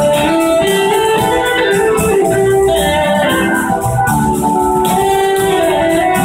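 A live blues-rock band playing loud, electric guitars over drums with a steady beat.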